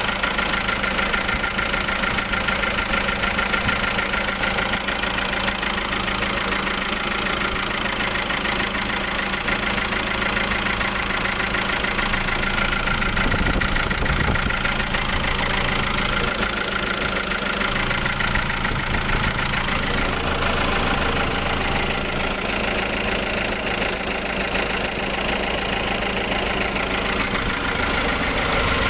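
Car engine idling steadily. The seller presents it as healthy, free of the cricket-like ticking ('jangkrik') that would point to valve or tappet noise.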